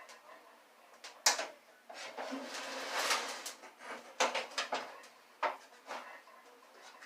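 Sheet-metal parts of a microwave oven being pried and pulled apart by hand: irregular metal clicks and knocks, the sharpest about a second in, with a stretch of scraping in the middle.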